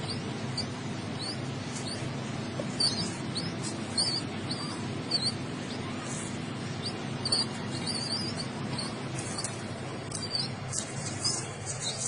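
Nestling pigeon giving short, high squeaky peeps, many in quick succession: the begging calls of a hungry chick, over a steady low hum.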